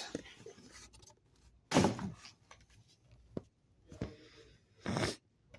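Handling noises as a stack of comic books is lifted out of a cardboard shipping box: a few short thuds and paper shuffles, with a sharp click about three and a half seconds in.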